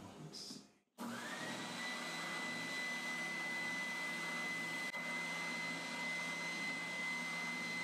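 Triton oscillating spindle sander starts about a second in and runs steadily. Its motor whine rises over about half a second, then holds one steady pitch.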